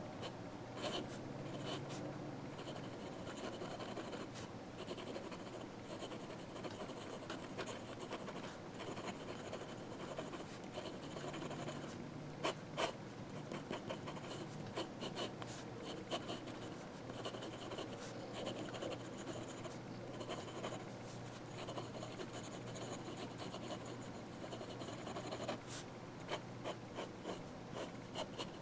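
Fountain pen nib scratching across sketchbook paper in quick short strokes and scribbles, from an Amazon Basics fountain pen whose nib its user calls a bit scratchy.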